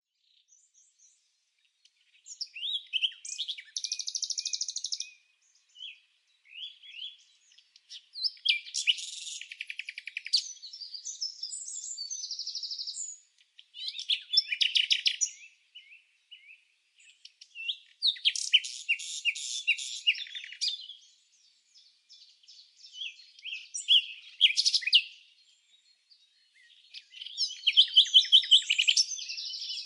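Bird song: phrases of rapid, high chirps and trills, one every few seconds, with short silent gaps between them.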